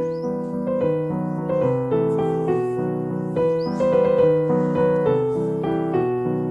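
Background piano music: a gentle melody of single notes over steady chords.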